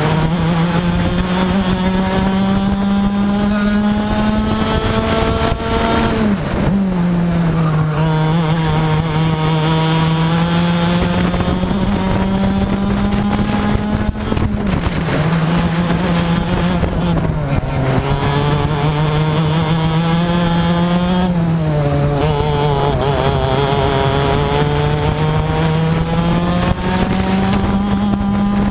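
Racing kart's two-stroke engine at full throttle, its pitch climbing steadily along each straight and dropping sharply four times as the driver lifts off for corners, then climbing again.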